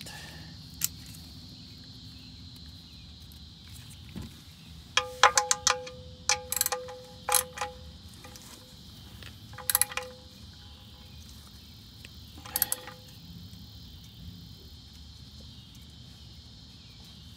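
Ratchet and socket tightening the oil pan drain plug: several short bursts of metallic clicking with a ringing tone.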